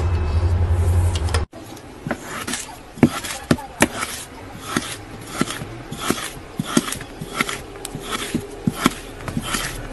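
Blue kinetic sand being cut and broken apart with metal cutters: crisp crunching strokes about every half second. Before that, a steady low hum runs for about the first second and a half and stops abruptly.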